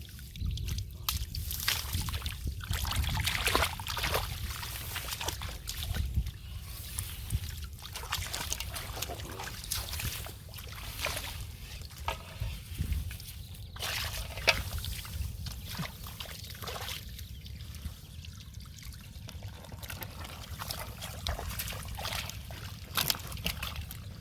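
Shallow water splashing and sloshing in irregular bursts, over a steady low rumble.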